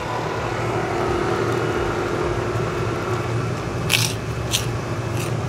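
Biting into crunchy tahu tek topped with crackers: two short crunches about half a second apart near four seconds in, then a fainter one, over a steady low hum.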